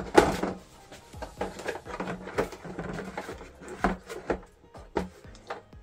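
Irregular plastic clicks and knocks as a large RC monster truck's plastic body shell is handled and pressed down onto the chassis.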